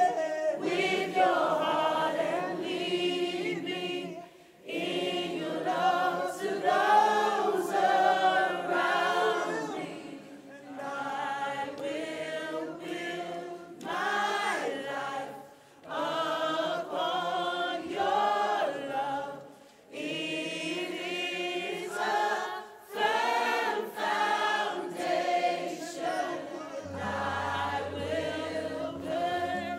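Worship leader and congregation singing together, many voices with little or no instrument behind them, in phrases broken by short pauses. A low steady note comes in near the end.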